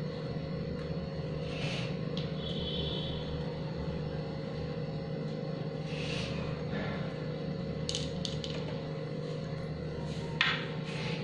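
Chopped dry fruits being sprinkled by hand onto a plate of halwa: a few brief light clicks and rustles, the loudest about ten and a half seconds in, over a steady low background hum.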